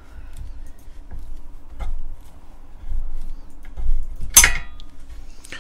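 Hand screwdriver driving a small screw into a bracket on a metal 3D-printer frame: faint clicks and knocks of the metal parts being handled, with a sharp metallic clink about four and a half seconds in.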